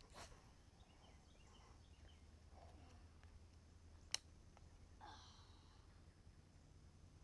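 Near silence: a faint low outdoor rumble with a few faint high chirps, and one sharp click about four seconds in.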